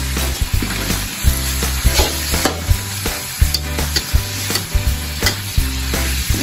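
Ground meat sizzling in hot oil in a steel wok as it is stir-fried, with frequent sharp clicks and scrapes of chopsticks and a metal spatula against the wok.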